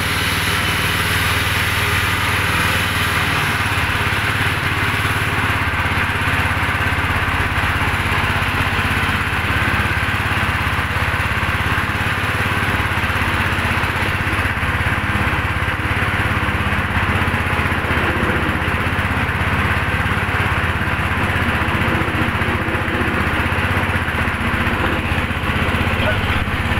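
An 8-inch belt-driven spice grinding disc mill running steadily as it grinds red chillies into paste, with an even machine drone.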